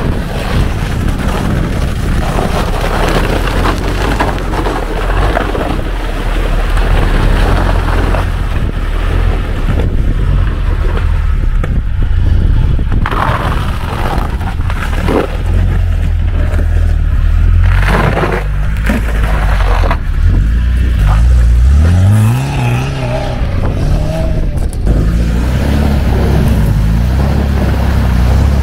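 Off-road 4x4's engine running under load while wading through water, with intermittent splashing. About three-quarters of the way through, the engine revs up in a rising pitch.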